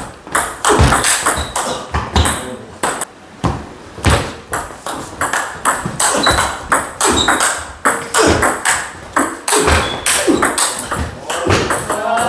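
Table tennis rallies: the ball clicking sharply off paddles and bouncing on the table in quick back-and-forth, several knocks a second.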